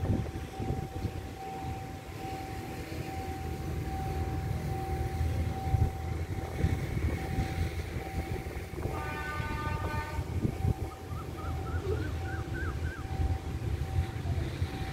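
A train horn sounds once, about nine seconds in, for a little over a second, faint under low wind rumble on the microphone. A steady high tone runs underneath, and a few short rising chirps follow the horn.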